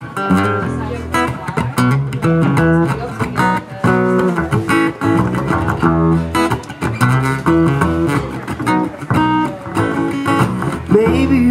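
Acoustic guitar and plucked upright bass playing together as the instrumental introduction to a song, with no singing yet.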